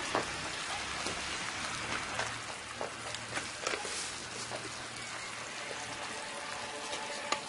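Onion-tomato masala sizzling in a clay pot over a wood fire: a steady hiss with scattered crackles and pops.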